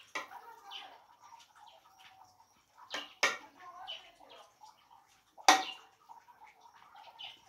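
A metal serving spoon clanking against an aluminium cooking pot as stew is dished out: two sharp knocks, the louder about five and a half seconds in. Birds chirp in the background.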